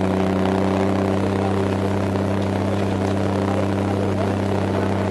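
Military cargo truck's engine running at a steady speed with a constant low hum, heard from inside the canvas-covered cargo bed.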